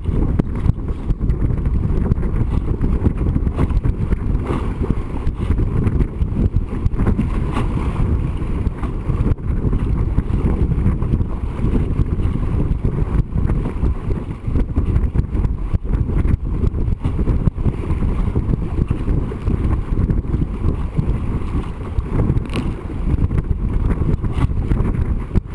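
Heavy wind buffeting on the microphone with water rushing and spraying along the hull of a small racing dinghy sailing fast, and a single sharp tick near the end.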